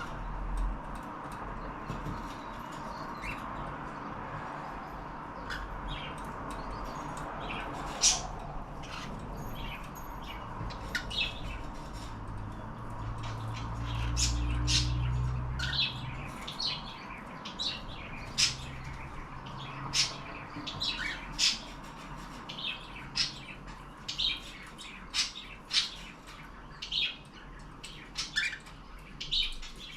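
Cockatiels chirping and squawking in short, sharp calls that come more often in the second half. A low rumble lasts about two seconds midway.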